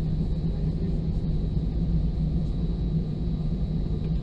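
Steady low rumble inside the cabin of an Airbus A320 taxiing with its engines at idle, with a faint high steady whine over it.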